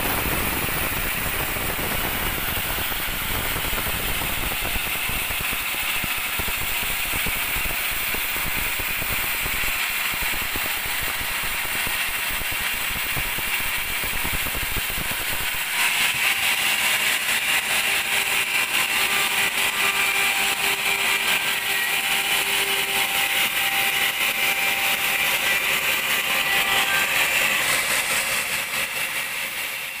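Band sawmill running, its blade cutting lengthwise through a very large teak log with a steady mechanical noise. About halfway through the sound changes abruptly to a brighter, hissier run with a faint steady whine.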